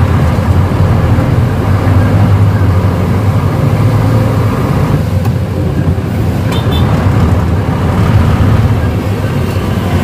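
Diesel engine of a ten-wheeler truck running steadily under way, heard from inside the cab as a loud low drone. About halfway through, the drone briefly dips and changes during a gear change, with a few light clicks just after.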